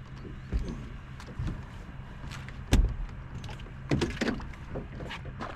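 A few sharp knocks and thumps against a fishing boat, the loudest about three seconds in and a short cluster about a second later, over a steady low hum.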